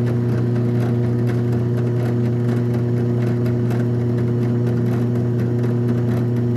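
Drill press motor running at a steady speed with a strong, even hum, spinning a PVC piece while a hand-held chisel cuts it down, with faint irregular scraping ticks over the hum.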